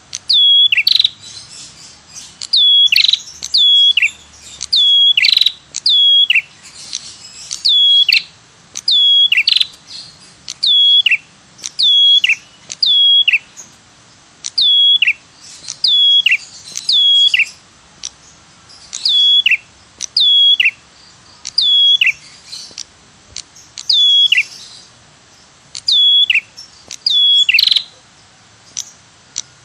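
Prenjak kepala merah (cemplik) lure call, repeated about every one to two seconds. Each call is a sharp high note sweeping down in pitch, followed at once by a lower downward-sweeping note, the 'tirr tiirr' pattern used to draw the birds in.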